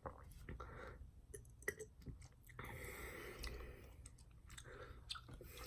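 Faint mouth clicks and small handling clicks close to the microphone, with a soft hiss for about two seconds in the middle.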